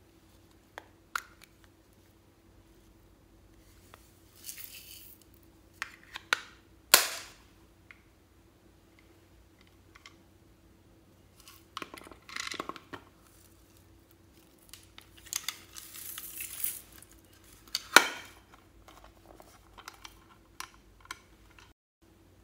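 Small plastic makeup compacts handled and opened, giving sharp clicks and snaps between short spells of scraping and rustling. The two loudest snaps come about a third of the way in and near the end.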